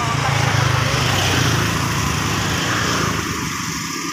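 Small motorcycle engine running as it passes close by, loudest about a second in and fading over the last second.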